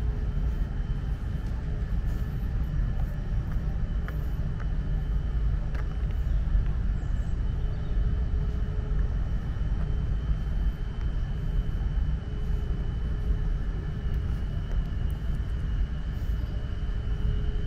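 Steady low rumble with a faint, steady high whine above it.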